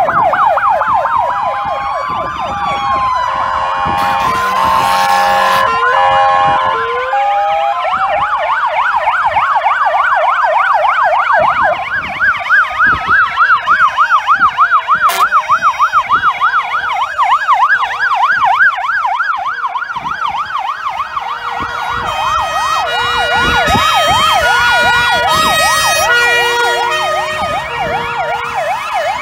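Sirens of several fire vehicles sounding together as they drive past in a column: a fast yelp, slower rising and falling wails, and a stepped two-tone near the end. A brief loud blast sounds about four seconds in.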